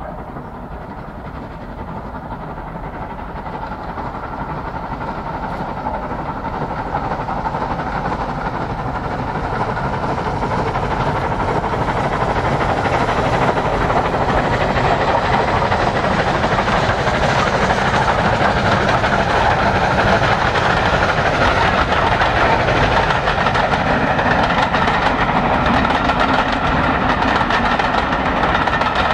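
LMS Royal Scot class 4-6-0 steam locomotive 46100 working hard up a bank with its train. Its exhaust and the clatter of wheels on the rails grow steadily louder as it approaches, then stay loud as it passes.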